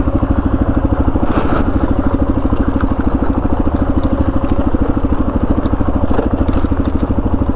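Dual-sport motorcycle engine running steadily at low revs while riding up a rough trail, its even exhaust pulses holding at one pitch.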